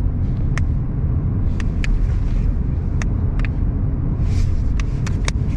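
Steady low road rumble inside a moving car's cabin, with a few faint short clicks.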